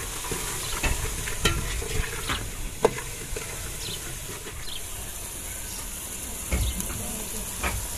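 Food sizzling as it fries in an aluminium pot, with a steady high hiss, while a metal ladle stirs and scrapes it, clicking sharply against the pot several times in the first three seconds. A few more knocks come near the end.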